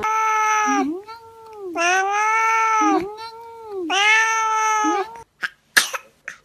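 Domestic cat yowling: three loud, drawn-out calls, each rising and then falling in pitch, with softer calls between them. Near the end come a few short, sharp clicks.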